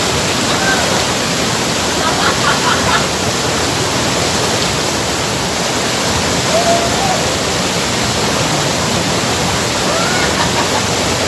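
Loud, steady rush of a waterfall's white-water cascade pouring over and around rocks, with a few brief faint voices.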